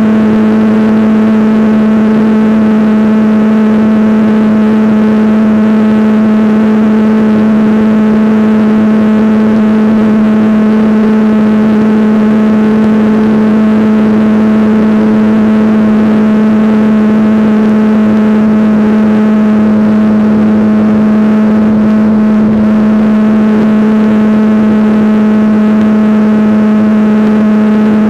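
Radio-controlled helicopter's motor and rotor running at a constant speed in flight, heard as a loud, steady hum with a whine that never changes pitch.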